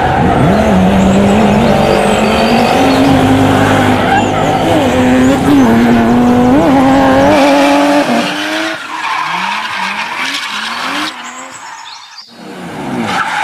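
Motor vehicle engine sound running at a steady pitch with small wobbles for about seven seconds, then a string of short rising and falling revs that fade away briefly near the end before coming back.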